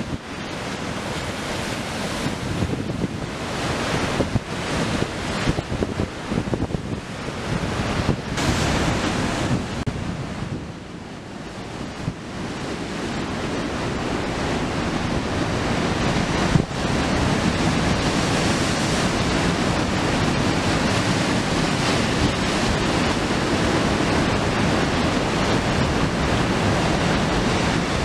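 Heavy storm surf breaking on a rocky limestone coast, mixed with strong wind buffeting the microphone. The wind gusts rise and fall through the first half, then settle into a steadier, louder rush, with one brief knock about two-thirds of the way in.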